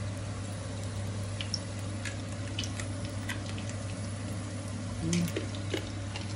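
Dried squid and dried fish frying in a non-stick pan, with scattered small crackles and pops of hot oil over a steady low hum.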